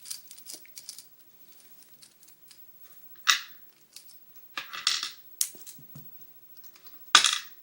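Sharp metallic clicks and clacks from a Phillips screwdriver and padlock parts being handled while taking apart an American 1105 padlock through its shackle hole, a few separate knocks with short quiet gaps between.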